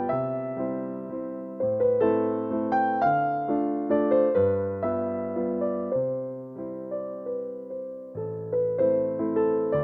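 Background music: a solo piano plays gentle chords under a slow melody, each note struck and left to fade.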